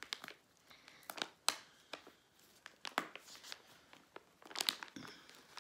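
Soft plastic packet of cleansing wipes crinkling in scattered, sharp crackles as its peel-back flap is pulled open.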